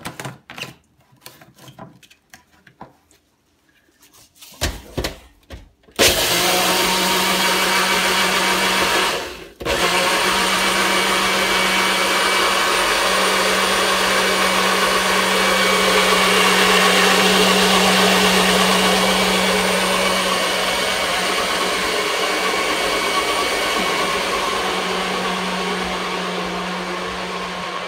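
NutriBullet blender blending unhulled hemp seeds with spring water. First come a few clicks and knocks as the blade cap is screwed on and the cup is seated. About six seconds in the motor starts and runs loud and steady with a hum, cuts out for a moment a few seconds later, then runs on, growing fainter toward the end.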